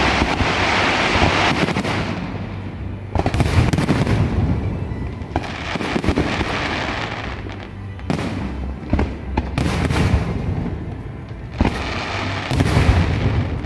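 Aerial fireworks going off one after another: a sharp bang every two to three seconds, each trailing off in a spreading hiss and crackle.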